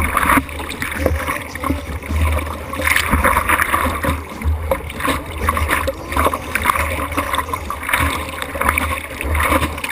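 Water sloshing and splashing against a board-mounted camera as a surfer paddles a surfboard, with irregular surges of splash over a steady low rumble of water and wind buffeting the microphone.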